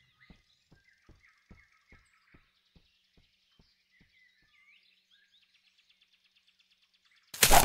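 Faint forest ambience with small birds chirping and a string of soft ticks, about two or three a second, that fade away. Near the end a sudden loud noise breaks in.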